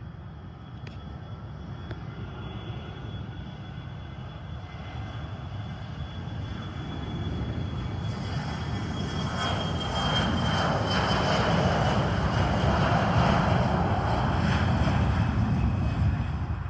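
Aircraft engines growing louder as an airplane passes close by, with a high whine that slides slightly down in pitch midway; the sound cuts off abruptly at the end.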